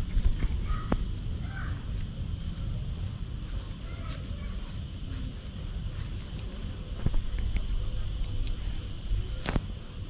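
Busy beach ambience: a steady low rumble of wind or surf under faint voices of beachgoers, with a few sharp clicks about a second in, near seven seconds and near the end.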